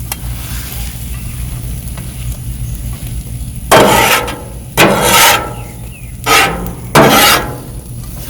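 Metal spatula scraping across a flat-top griddle four times, over a steady low hum.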